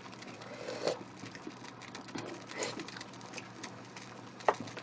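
Quiet kitchen sounds: scattered soft clicks and taps, with a few slightly louder short knocks about a second in and near the end.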